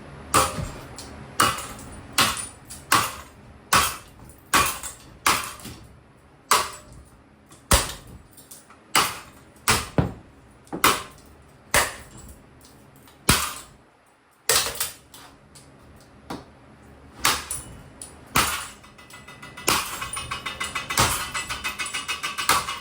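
A golf putter repeatedly whacking the motor of a cheap 24-inch allen + roth ceiling fan: about twenty sharp metal-on-metal blows at roughly one a second. Background music with a steady beat comes in near the end.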